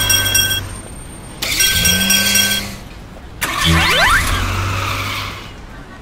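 Car engine sound effects starting and running in three separate bursts with short quieter gaps between them. Steady high tones sound over the first two bursts, and the pitch rises during the third.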